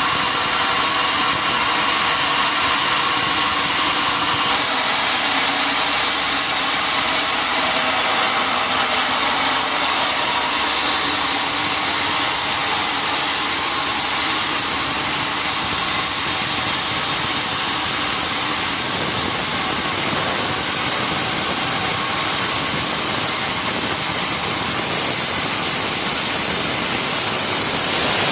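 Sawmill machinery running steadily: a loud, even noise that holds level throughout with no breaks or sudden impacts.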